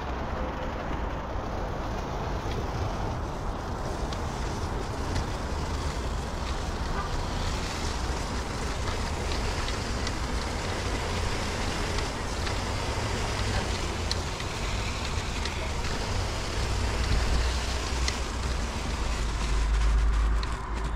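Wind buffeting the microphone, a fluctuating low rumble over a steady background hiss like distant traffic.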